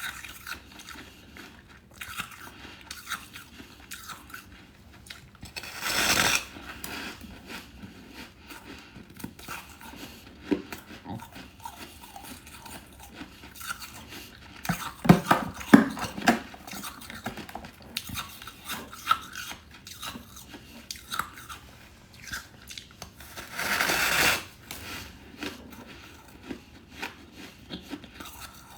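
Close-miked biting and chewing of hard freezer frost: crisp crackles and crunches, a cluster of loud bites about halfway through, and two louder bursts of crunching, one about six seconds in and one about four-fifths of the way through.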